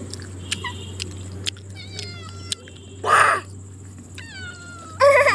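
A cat mewing: a string of short, high-pitched calls that fall in pitch, with a longer falling mew just after four seconds in. A brief loud rustling noise comes about three seconds in.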